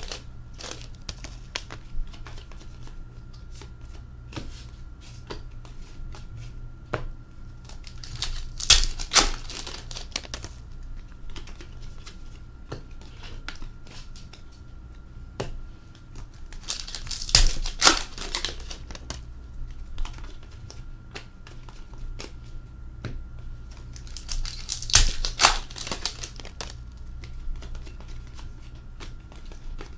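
Hockey cards being flicked and sorted by hand, giving a run of small ticks and clicks, broken three times by the louder crinkle and tear of a foil card pack being ripped open, about 9, 17 and 25 seconds in.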